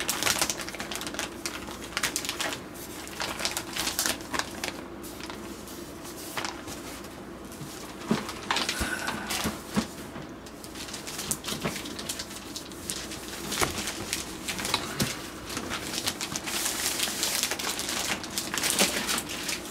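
Clear plastic wrapping around a cardboard figure box crinkling and rustling as hands handle and turn the box, in irregular crackles over a steady low hum.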